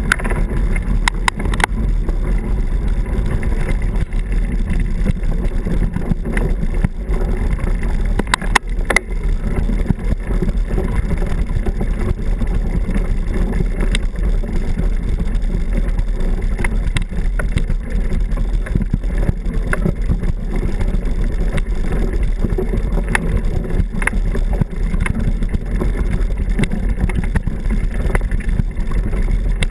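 Steady wind rush and rumble on a bike-mounted camera's microphone as a mountain bike rolls over a gravel and dirt trail, with scattered sharp knocks and rattles from bumps in the track.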